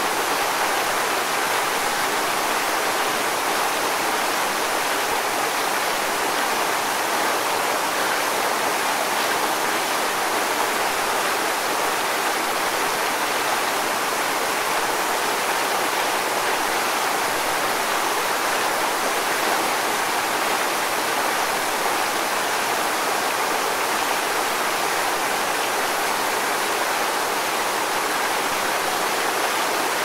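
Waterfall with several thin falls dropping into a pool: a steady rushing hiss of water with little deep rumble.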